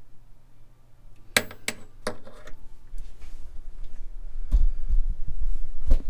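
Four sharp metallic clinks in quick succession about a second and a half in, as the flame sensor, screwdriver and sheet-metal parts knock together. Then low, bumpy rumbling from the camera being handled, growing louder near the end.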